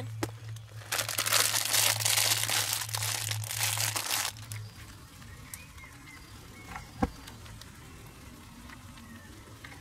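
A plastic food packet crinkling as it is handled and folded up, for about three seconds starting about a second in. Later comes a single sharp knock, about seven seconds in.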